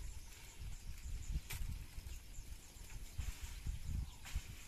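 A bamboo stick tamping down inside a green bamboo tube, making irregular dull low thuds, with one sharp knock about a second and a half in.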